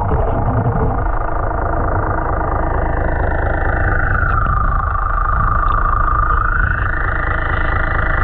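Boat engine and propeller heard underwater: a steady low rumble with a whine that drops in pitch about four seconds in, holds, then rises again near the end.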